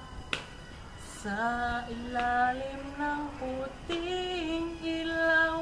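A young person singing a slow melody alone, starting about a second in. The first phrase has held notes climbing gradually in pitch, and the second phrase ends on one long note held to the end.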